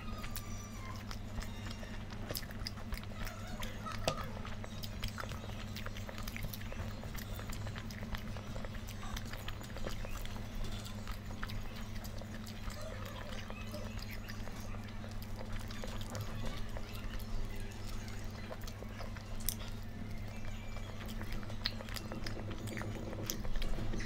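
A person chewing and eating food, with many small clicks and smacks scattered throughout, over a steady low hum.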